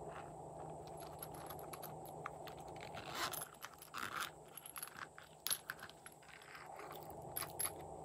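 Clicks and scrapes of a small plastic container being handled and opened, then sequins tipped out onto slime, over a steady low hiss.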